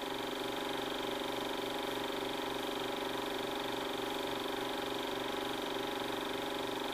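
Steady mechanical hum made of several held tones, with a faint regular throb a few times a second, like an idling engine.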